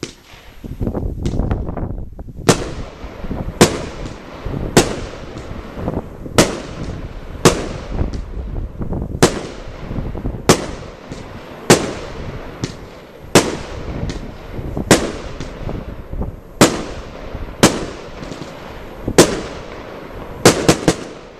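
Lesli Thunderblock 16 firework battery (20 mm, 16 shots) firing its shots in sequence. A sharp bang comes about every second, with the rumble and hiss of the launches between them, and the last two come in quick succession near the end.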